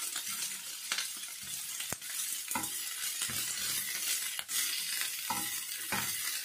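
Julienned cabbage, carrot and capsicum sizzling as they shallow-fry in a pan, under a steady hiss. A slotted spatula stirs and tosses them, scraping and tapping against the pan several times.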